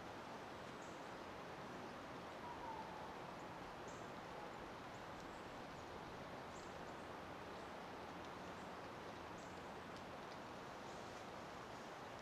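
Faint outdoor ambience: a steady low hiss with short, faint high-pitched bird chirps every second or so, and one brief faint call about two and a half seconds in.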